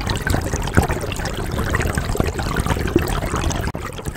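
River water trickling and splashing, a steady wash full of small quick splashes; it drops and fades out near the end.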